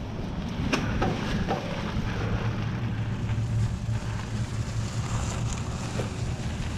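Wind rumble on the camera microphone and tyre noise from a Specialized Stumpjumper mountain bike rolling over a dirt trail, with a couple of sharp clicks or knocks, the clearest about a second in.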